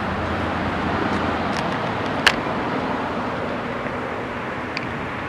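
A single short, sharp pop about two seconds in: a converted fully automatic paintball gun dry-firing on regulated CO2 at about 84 PSI, with no ammunition loaded. Steady traffic and outdoor noise underneath.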